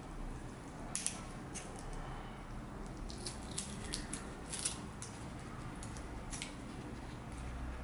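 Kitchen scissors snipping through raw chicken legs: a run of short, sharp snips and clicks at an uneven pace, most of them bunched in the middle.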